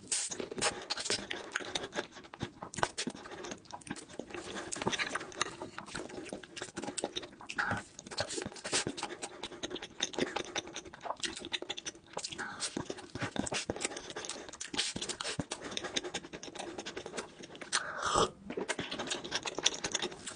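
Close-miked eating of soft, creamy cheesecake: wet chewing, lip smacks and mouth clicks in a dense, irregular run, with breathing between bites.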